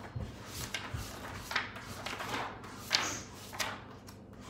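Cookbook pages being flipped: a string of short papery swishes, roughly one every half second to second, the sharpest about three seconds in.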